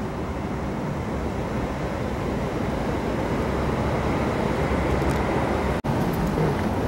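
Steady outdoor city street noise, a dense low rumbling hiss, that cuts out for an instant about six seconds in at an edit.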